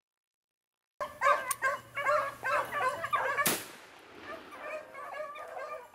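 A pack of beagles baying, starting about a second in, with one sharp crack about halfway through.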